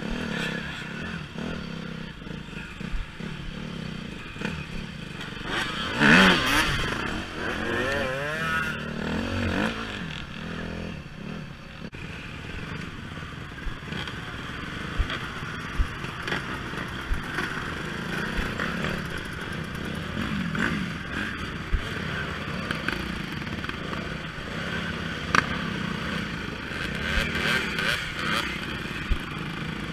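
Off-road dirt bike engines running and revving, with a loud rev and rising and falling pitch about six seconds in. Several bikes idle and blip the throttle together as they bunch up on a climb, with a few sharp knocks along the way.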